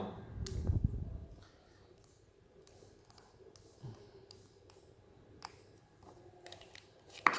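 Handling noise and a few scattered small clicks from an opened remote control's plastic case and battery being worked by hand, with a low rumble of handling in the first second or so.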